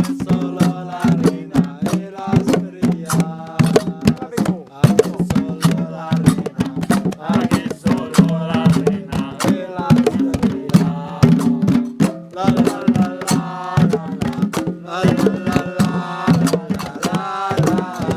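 Berber music: fast, dense hand-drum beating with voices singing over it.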